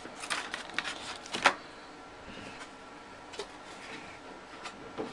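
Box packaging being handled: a run of light clicks and rustles, the sharpest click about a second and a half in, then quieter rustling with a few scattered clicks.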